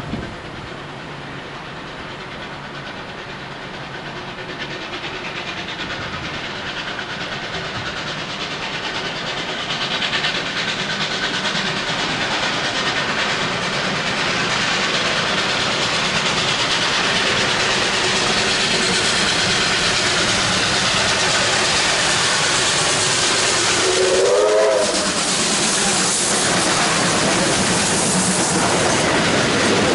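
An R class and an A2 class steam locomotive double-heading a train, approaching and growing steadily louder. A short steam whistle blast bends up and down in pitch late on. The locomotives then pass close with hissing steam and rolling wheels.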